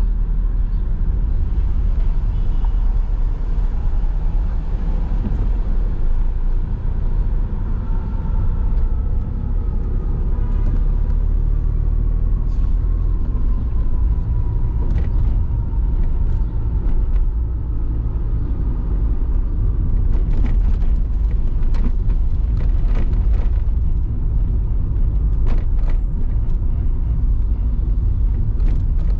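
Road noise of a car driving in city traffic: a steady low rumble. A faint tone slides slowly down in pitch for several seconds in the middle, and scattered clicks and knocks come through in the second half.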